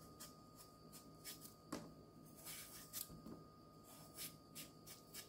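Faint, irregular scraping strokes, a few per second, of a small knife paring the skin off a raw potato.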